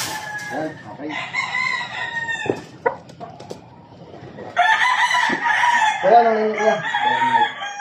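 Gamefowl roosters crowing: long drawn-out crows in the first couple of seconds, a short lull, then more crowing from about four and a half seconds in.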